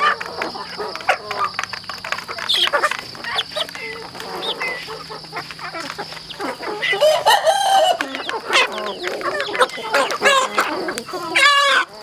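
A flock of young chickens clucking and calling while they feed, with many quick taps of beaks pecking at a plastic feed trough. There is one longer call about seven seconds in.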